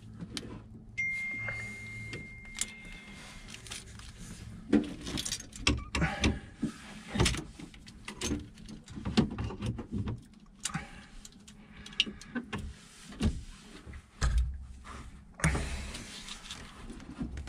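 Irregular metallic clinks, taps and rattles of steering hardware being handled and fitted by hand: an autopilot drive's slide tube and linkage going onto a sterndrive's mechanical steering cable.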